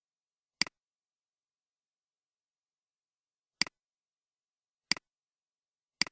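Computer mouse clicking four separate times, each a sharp click with a quick press-and-release double tick, spaced unevenly over otherwise silent audio.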